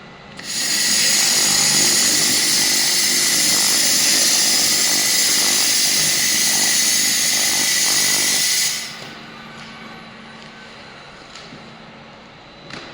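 Handheld fiber-laser cleaning head firing on a metal surface: a loud, even high-pitched hiss that starts about half a second in and cuts off sharply after about eight seconds, leaving only a quieter machine hum.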